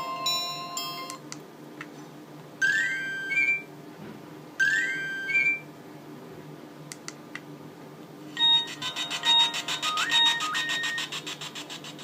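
Nokia 2310 ringtone previews playing from the phone's small speaker as the tone list is scrolled. A beeping alert tone cuts off about a second in. Then a short rising chirp tone plays twice, about two seconds apart, and from about eight seconds in a busier, fast-pulsing multi-note tone plays for about three seconds.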